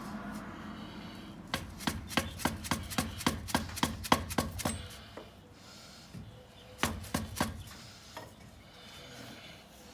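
Hammer striking a round steel driver to seat a new axle housing seal: a quick run of about a dozen sharp metallic taps, then a short burst of four more a couple of seconds later.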